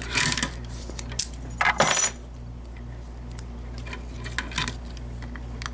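Small metal Master padlocks clinking and rattling as they are handled, with a loud rattle about two seconds in and scattered light clicks after, over a low steady hum.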